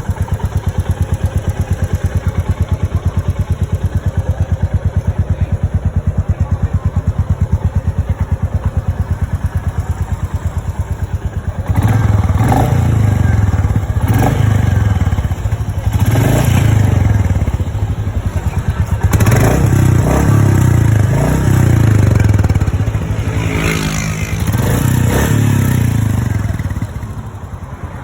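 Royal Enfield Meteor 350's single-cylinder engine idling steadily, then revved in a run of throttle blips starting about twelve seconds in, each rising and falling, before settling back to idle near the end.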